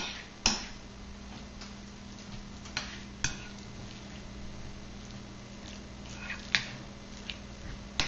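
Metal fork mashing soft cooked sweet potato and cream cheese in a ceramic bowl, with scattered sharp clinks and scrapes of the fork against the bowl. The loudest clinks come about half a second in and around six and a half seconds in.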